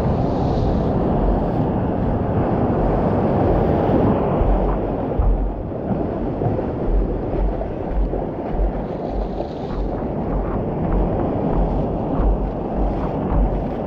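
Surf and whitewater rushing around a surfboard, heard through a camera mounted on the board's nose, with wind buffeting the microphone in low gusts.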